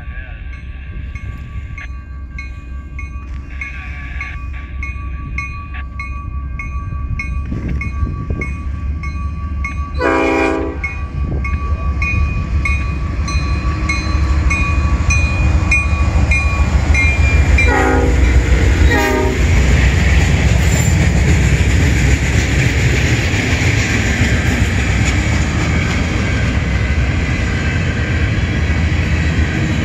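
Freight train led by CN GE C40-8M and C44-9W diesel locomotives approaching and passing. The lead locomotive's air horn sounds one blast of about a second roughly ten seconds in, then two short blasts about eight seconds later. After that the diesel engines and the rumble and clatter of the train's wheels on the rails grow loud as it goes by.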